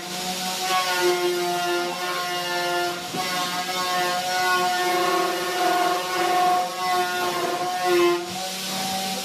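A motor running with a steady humming whine of fixed pitch, and a single knock about three seconds in.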